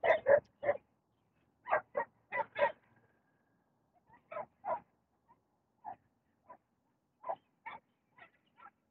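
Dog barking in the background: a string of short, sharp barks, loudest in the first three seconds and fainter and more spaced out after that.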